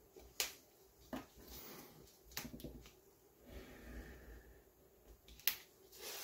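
A knife trimming the overhanging adhesive magnet sheet off the edge of an aluminium printer bed: soft scraping, with a handful of sharp clicks as the blade and cut strips catch on the plate.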